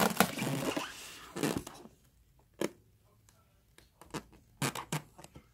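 Rustling and scraping from handling the styrofoam incubator box as its lid is opened, then a few scattered light clicks and taps.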